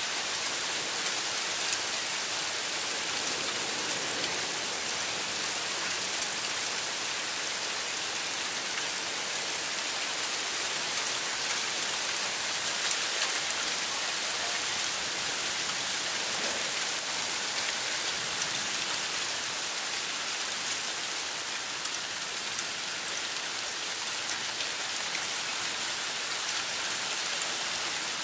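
Heavy thunderstorm rain falling steadily, a dense even hiss of drops on roofs and pavement.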